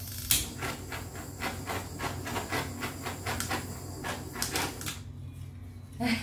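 Handheld butane torch hissing steadily over wet acrylic pour paint, with quick irregular ticks throughout, cutting off about five seconds in. The torch is being passed over the surface to bring cells up in the fresh pour.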